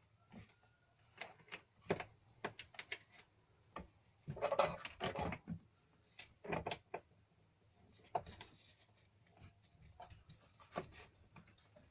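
Handling noises: a scatter of short clicks and knocks, with a longer, louder scraping rustle about four seconds in.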